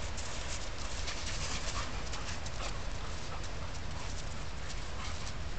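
An Airedale terrier and a retriever play-fighting: panting and scuffling, with scattered short clicks over a steady low rumble.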